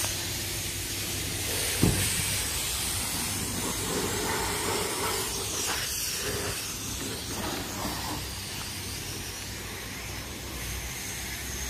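Steady hiss of a high-pressure car-wash lance spraying water, with a single thump about two seconds in.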